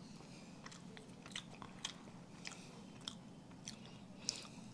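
A person chewing a mouthful of soft pastry: faint wet mouth clicks and smacks, about one or two a second.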